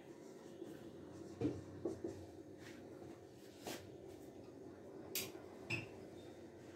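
Faint marker strokes and taps on a writing board: a few short scratches and clicks, over a steady low hum.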